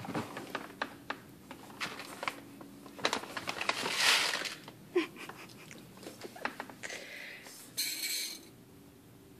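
Uncooked rice being scooped by hand from a paper rice bag and tipped into a pot: paper crinkling and dry grains rattling, with small clicks throughout, a loud rustling rush about four seconds in and a shorter one near the end.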